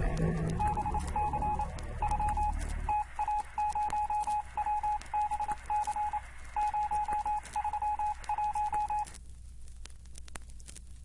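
A single-pitch electronic beep tone keyed on and off in short and long pulses like Morse code, stopping shortly before the end, over a crackle of clicks. A low rumble fades out about three seconds in.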